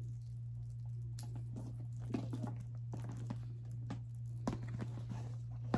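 Items being handled and packed into a coated-canvas tote: scattered light rustles and clicks, with a sharper click near the end, over a steady low hum.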